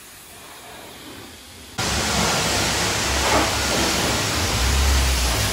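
High-pressure car-wash wand spraying water: a faint hiss that jumps suddenly, about two seconds in, to a loud, steady hiss, with a low rumble joining near the end.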